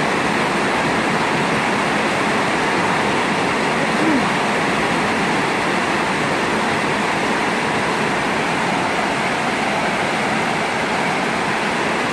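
Steady rain pouring down, a loud, even hiss that does not let up.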